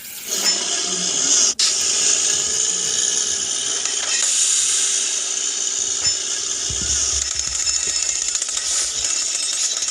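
Small electric motor of a homemade mini borewell drilling rig switched on and running steadily with a high whir, cutting out for a split second about one and a half seconds in.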